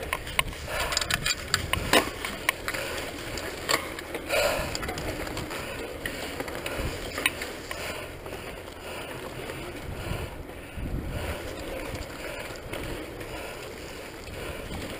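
Mountain bike rattling and knocking over a rough dirt trail for the first few seconds, then standing still while other mountain bikes roll past on the dirt with a steady rustle of tyres.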